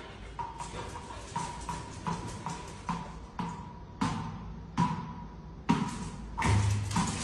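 Sharp knocks on concrete stairs, coming irregularly about one to two a second, each with a brief ringing tail that echoes in the bare stairwell. The loudest come around four, five and six seconds in.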